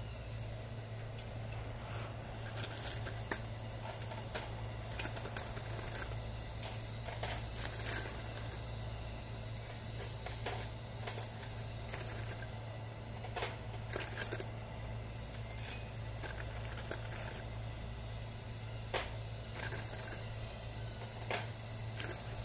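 Hex-head roofing screws clinking against each other and a steel wire-mesh screen as they settle point-down into its holes: scattered, irregular metallic clicks and jingles, with a few sharper ones, over a steady low hum.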